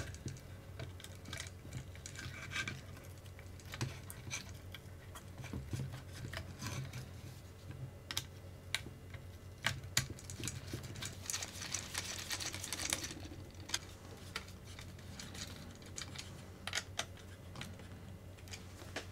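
Irregular small clicks and scrapes of screws being started and driven with a screwdriver to fit an RC car chassis's rear body mount, with a longer scraping stretch a little after the middle.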